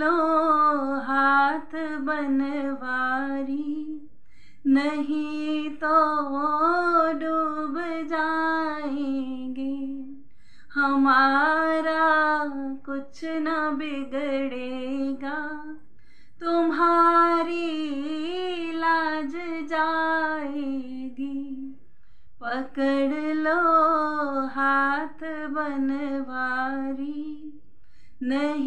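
A woman's voice singing a Hindi devotional bhajan unaccompanied, in sung phrases of about four to six seconds with short pauses for breath between them.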